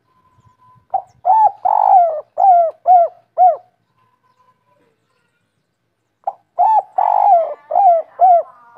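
Spotted dove (derkuku) cooing its 'kuk 3' song: two phrases of about six low, rounded coos each, the first starting about a second in and the second starting a little past six seconds.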